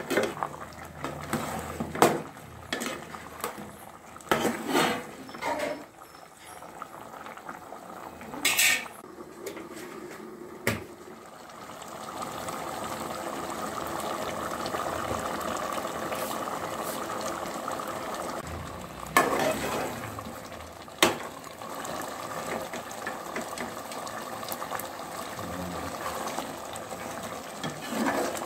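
Thick curry bubbling at a boil in a metal pot, with a steel ladle stirring through it and knocking against the pot's side several times.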